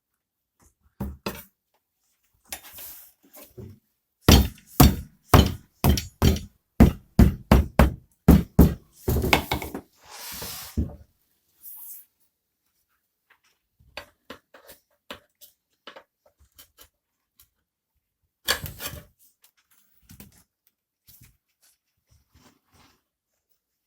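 Hammer blows on a tyre lever and rim while working a tyre bead onto a Dnepr/Ural motorcycle wheel: a run of about a dozen sharp knocks, roughly two a second, then a short rough scraping, and another burst of knocks later on.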